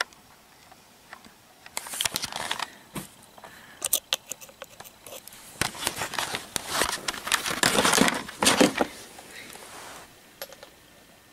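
Handling noise from a plush toy's plastic battery compartment and its AA batteries being worked on by hand: irregular clicks, scrapes and fabric rustling, busiest from about two seconds in until near the end.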